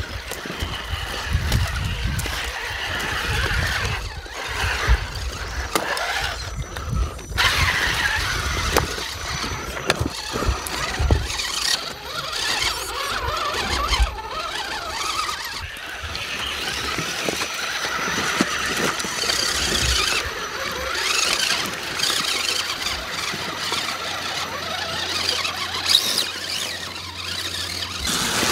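Electric 1/10-scale RC crawler trucks whining from their motors and geartrains as they crawl over rocks and through shallow creek water, with scattered knocks and splashes.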